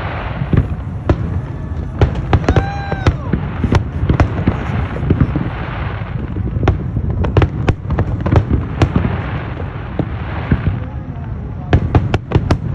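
Fireworks display: a steady run of sharp bangs and crackling shell bursts over low booming, with a short whistle about three seconds in.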